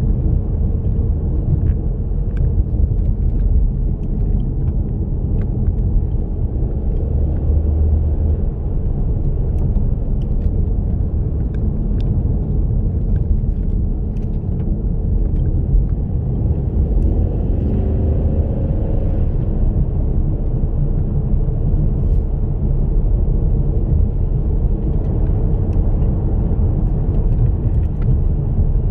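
2016 Ford Mustang driving along a road: steady low engine and road rumble, with a brief gliding change in pitch about seventeen seconds in.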